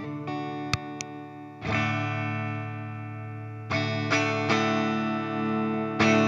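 Electric guitar played through an effects pedalboard: two sharp clicks just under a second in, then chords struck and left to ring out, with several more chords struck in the second half.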